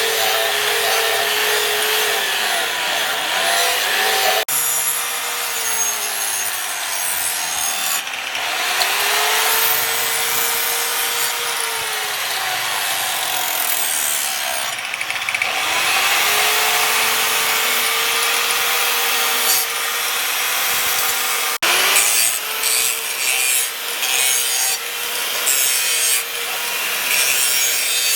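A power grinder grinding the leaf-spring steel of a knife blade. Its motor pitch sags under load and climbs back again and again over a steady harsh grinding noise, which breaks off abruptly a few times.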